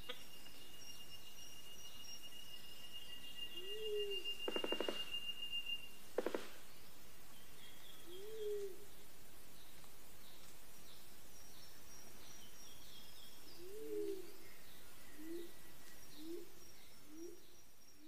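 Forest birds calling: high chirps throughout, and a few low, arched notes that give way to a quick series of short low notes near the end. About four seconds in comes a rapid rattle, followed by two sharp clicks. A steady high whistling tone runs through the first six seconds and then stops suddenly.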